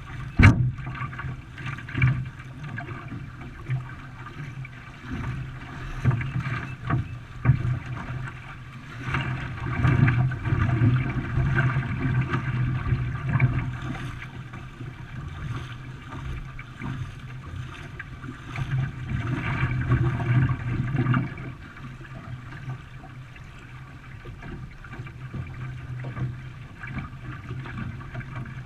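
Canoe being paddled: water splashing and gurgling against the hull with the paddle strokes, in uneven surges. There is one sharp knock just after the start.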